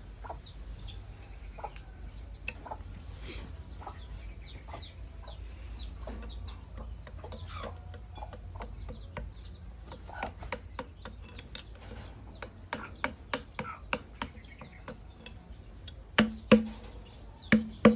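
Sharp knocks of a mallet driving a wood-carving chisel, sparse at first, then more frequent and loudest in a few heavy blows near the end. Under them runs a background of quick, repeated high bird chirps, thickest in the first half.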